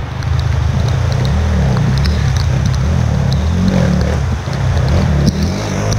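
Off-road motorcycle engine running at low revs, its pitch wavering up and down.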